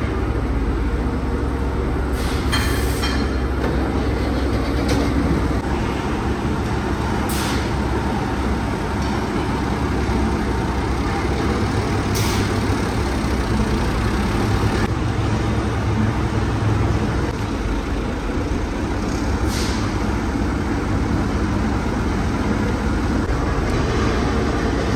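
Steady din of battery-factory machinery with a low hum, broken every few seconds by a short high hiss.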